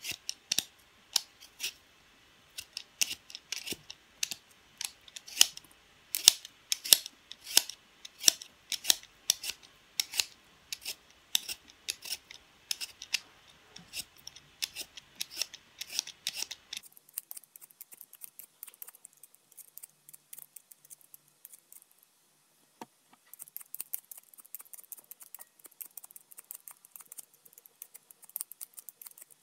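Vegetable peeler scraping the skin off a raw potato in quick strokes, about two a second. About two-thirds of the way through the strokes turn fainter and quicker.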